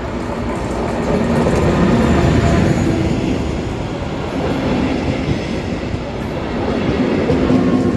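Class 204 (ex-DR V100) diesel-hydraulic locomotives hauling a passenger train past, the diesel engine drone mixed with rumbling wheels on the rails. It swells about two seconds in, eases in the middle and swells again near the end.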